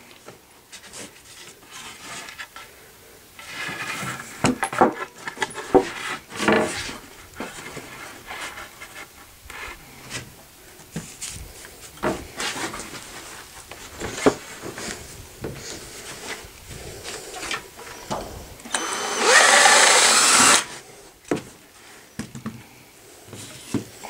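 Cordless drill running in short bursts, drilling and driving into pine 1x8 boards to fit the brackets of a wooden frame, amid knocks of the boards and tools being handled. The longest and loudest run of the drill comes near the end.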